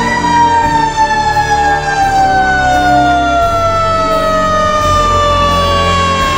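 Fire engine siren in one long, slow downward wail, its pitch falling evenly throughout, with the truck's engine rumbling low underneath.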